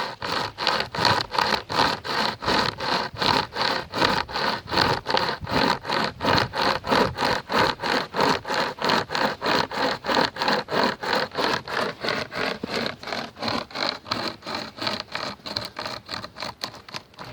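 UST SaberCut pocket chainsaw, a hand-pulled cutting chain, sawing through dead wood in steady back-and-forth pulls, each stroke a rasping scrape of chain teeth on wood. The strokes come about three a second and stop near the end.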